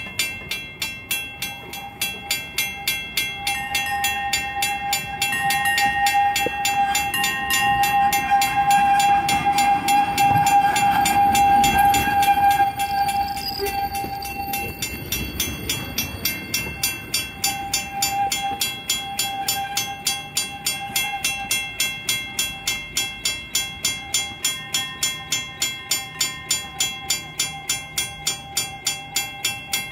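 Steel wheels of the Old Poway trolley squealing as they grind round a tight curve on old, rusty track, a steady high screech that is loudest about ten seconds in, dies away near the middle and comes back fainter. Under it a mechanical railroad crossing bell rings in quick, even strokes, a few to the second.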